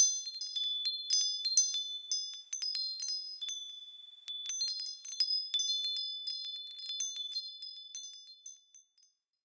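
Wind chimes ringing in irregular clusters of high-pitched strikes. The strikes thin out briefly about four seconds in, pick up again, then die away near the end.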